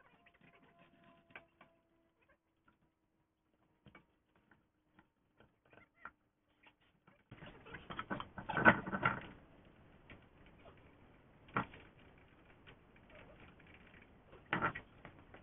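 Scattered metal clicks and taps of a trailer wheel being fitted, with lug nuts threaded onto the studs by hand. From about seven seconds in a faint hiss joins, with a loud knock about nine seconds in and smaller knocks near twelve and fifteen seconds.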